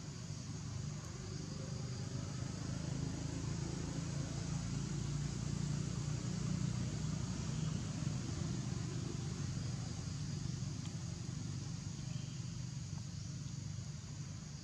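Low, steady engine rumble of a motor vehicle, swelling toward the middle and easing off again, with a faint high insect drone.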